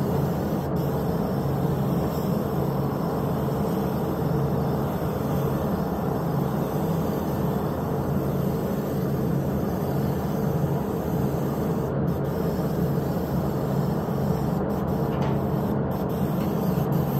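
Steady hiss and drone of a compressed-air gravity-feed paint spray gun spraying, with spray-booth ventilation running.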